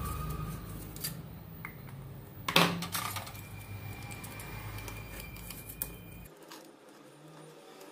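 Desk-top handling of aluminium foil and small tools: light clicks and clinks, with a sharp knock about two and a half seconds in as the marker pen is swapped for a utility knife, then the knife working the foil. A low background hum runs under it and cuts off about six seconds in.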